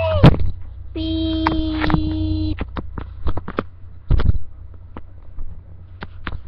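A voice trails off and a click follows. Then comes a steady, flat beep-like tone held for about a second and a half, then scattered handling clicks and a knock on the microphone, all over a constant low electrical hum.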